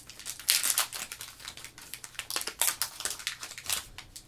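Foil wrapper of an Upper Deck Marvel Ages trading card pack being torn open and crinkled in the hands: a run of irregular crackles and rustles.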